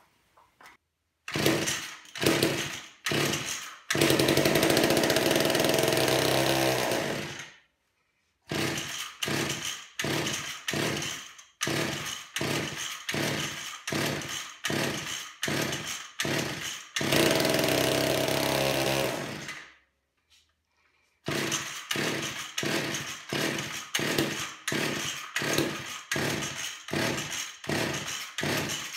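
Old McCulloch chainsaw's two-stroke engine being pull-started on full choke: a quick series of cord pulls, each a short burst of cranking, and twice the engine catches and runs for about three seconds before dying. It runs only on the fuel primed into the carburetor and dies: the owner suspects a gunked fuel filter that won't draw fuel from the tank.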